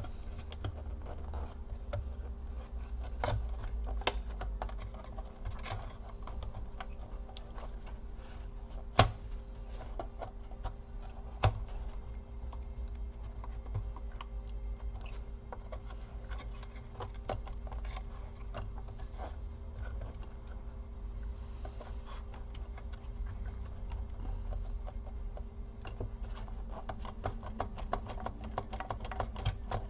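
Laptop parts being worked loose and handled by hand: scattered small clicks and taps of plastic and metal, with two sharper knocks about nine and eleven and a half seconds in, over a steady low hum.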